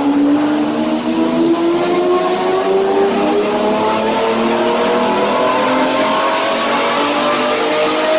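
Pagani Zonda V12 engine swapped into a BMW 1 Series, pulling under load on a chassis dyno: a loud, steady engine note whose pitch rises slowly and evenly as the revs climb.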